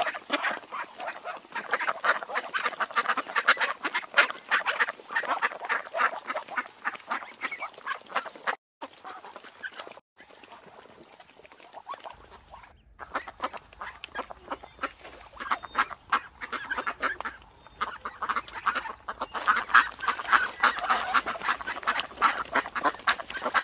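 A flock of ducks and ducklings calling, many overlapping quacks and calls at once. It breaks off briefly twice about a third of the way in, then builds up dense again toward the end.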